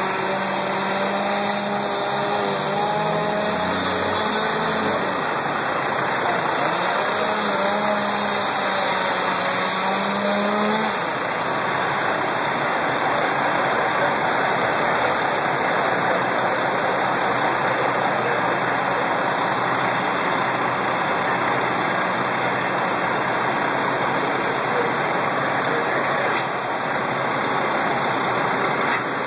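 Fire truck engines running steadily, a constant loud drone without breaks.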